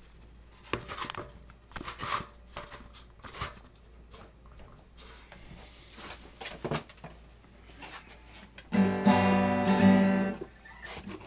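Scattered knocks and rustles of handling, then about nine seconds in a single strummed chord on a sunburst steel-string acoustic guitar that rings out for about two seconds.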